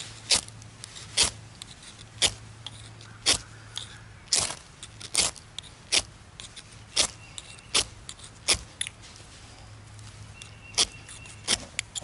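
Ferro rod scraped with the small blade of a Victorinox Hiker Swiss Army knife: about a dozen sharp rasping strikes, roughly one a second with a short pause after the middle, each throwing sparks onto magnesium shavings and tinder to light a fire.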